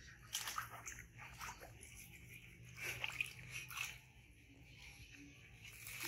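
Hands rubbing soap lather into a young macaque's wet fur, making irregular squelching, squishing rubs in uneven bursts.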